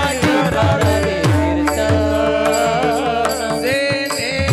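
Devotional kirtan music: a sung melody over a steady held drone and hand-drum strokes. A new sung phrase comes in near the end.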